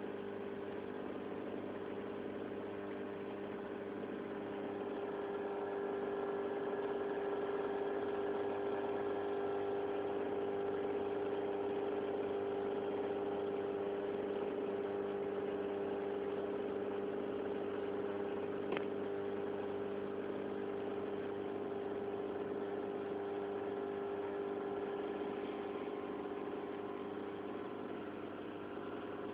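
Steady hum of an aquarium pump, holding several fixed tones without change, with a single faint click about two-thirds of the way through.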